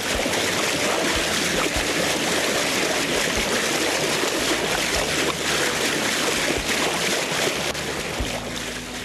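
Steady rushing water noise, with a few faint low bumps.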